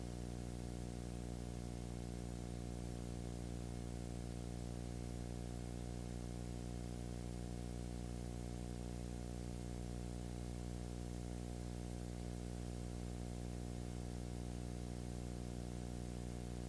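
Steady electrical hum with a stack of low overtones under a constant hiss, unchanging throughout: the noise floor of a silent home-movie transfer, with no sound from the scene itself.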